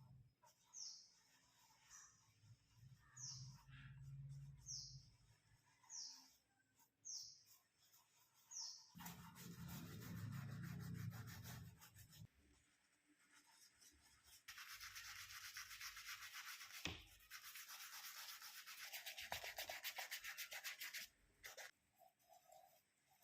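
A brush scrubbing a shoe with toothpaste and soapy water, in fast back-and-forth strokes. The scrubbing comes in two spells of a few seconds each in the second half, with a short pause between them.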